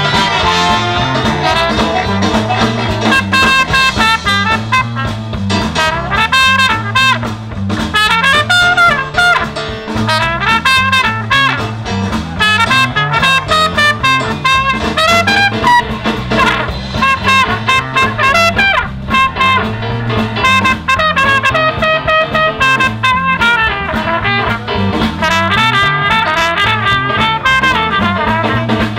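Live brass band playing: saxophones and brass over an electric bass, with a steady repeating bass line under a busy horn melody.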